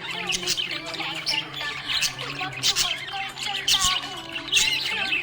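Several budgies chirping and warbling at once: a dense run of short squawks and twittering calls, over a faint steady low hum.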